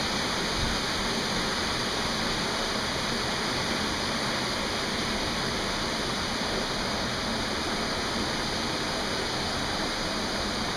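Steady rush of a mountain stream and waterfall running over boulders: an even, unbroken noise.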